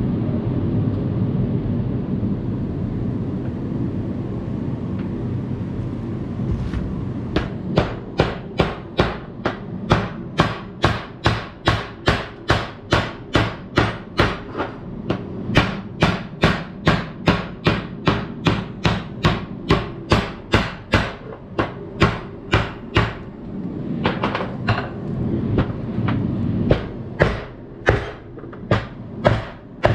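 Repeated hammer blows, about two a second, starting about seven seconds in, pausing briefly and starting again near the end, over a steady low hum.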